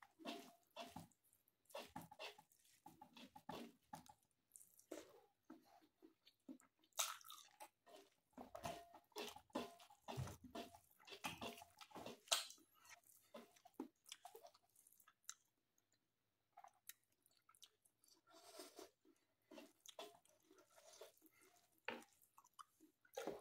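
A person chewing mouthfuls of mutton and rice close to the microphone: faint, irregular chewing clicks and mouth sounds, with a quiet stretch of a few seconds past the middle.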